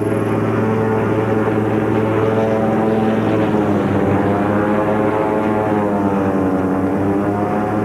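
Propeller aircraft piston engine running steadily, heard from inside a light-plane cockpit; its pitch dips about four seconds in and climbs back a couple of seconds later.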